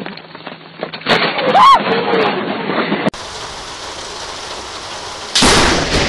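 Close lightning strikes. A sharp thunderclap about a second in, with a person's cry that rises and falls in pitch. Then steady rain and wind hiss, broken near the end by another sudden, loud thunderclap.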